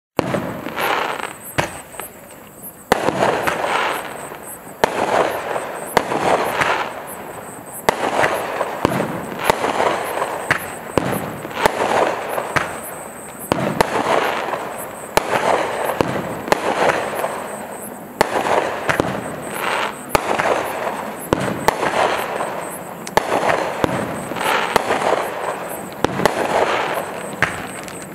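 NCI 'Minor Infraction' 25-shot aerial repeater cake firing shot after shot, about one every second or so. Each shot is a sharp launch bang followed by about a second of noise as the shell bursts overhead.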